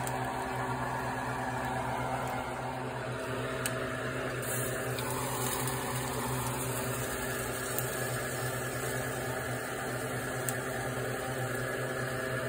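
A steady electric machine hum, with a few faint ticks and a higher hiss that joins about four seconds in.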